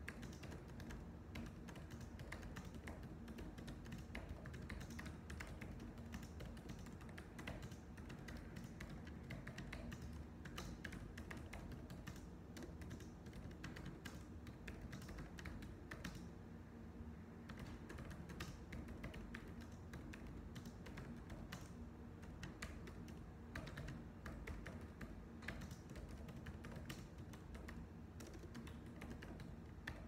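Typing on a computer keyboard: a continuous run of irregular key clicks, fairly faint.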